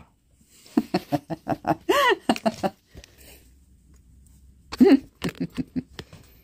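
A pet animal giving two runs of short, quick pitched cries, about two seconds apart, the first run with one longer rising-and-falling cry in the middle.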